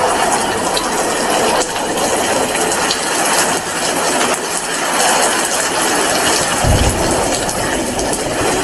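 Heavy rain falling steadily, a dense hiss full of sharp individual drop impacts. A brief low thump comes about two-thirds of the way through.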